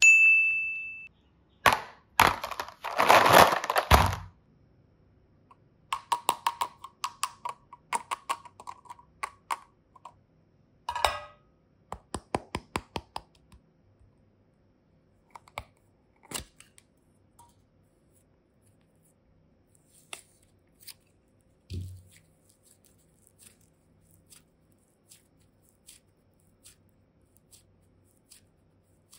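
Small plastic toy cases being handled: a run of clicks, snaps and crackles as they are pressed and opened, loudest early on as a burst of dense crackling. There is a brief high ring at the start and a single dull thump later.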